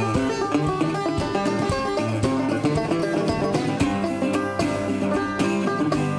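Background music: a quick, steady tune on plucked string instruments.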